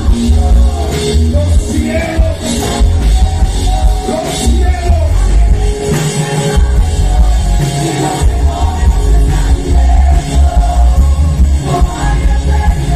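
Loud music with a heavy pounding bass and a regular beat, with singing over it.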